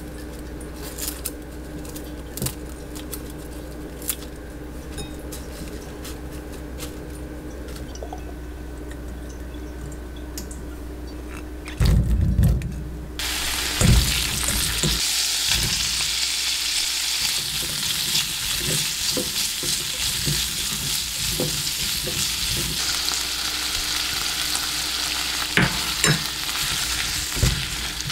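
Food frying in a pan. After a heavy knock about twelve seconds in, a sizzle starts abruptly and carries on, with the light clicks and scrapes of a utensil stirring it. Before that there is only a steady low hum and a few faint clicks.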